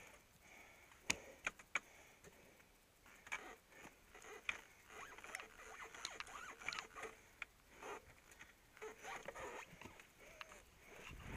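Faint scattered clicks, taps and rustling scrapes, as of riding gear and bike parts being handled, with no engine running. A few sharper clicks come in the first two seconds, and the rustling thickens from the middle on.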